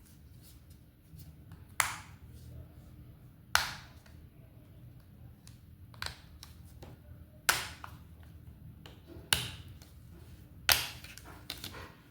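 Handling noise: five sharp taps or knocks one to two seconds apart, with fainter clicks between them, over a low steady hum.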